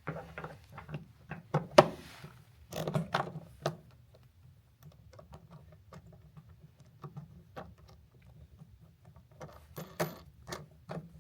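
Hardware being handled and fitted: clicks and knocks of a bolt, washers and a wing nut as a guide wheel is fastened onto the vacuum's nozzle. The knocks come in a busy cluster over the first few seconds and another near the end, with light ticking between.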